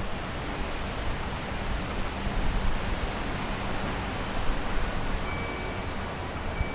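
Wind buffeting the microphone: a steady rushing noise with gusty low rumbles. A faint thin high tone joins near the end.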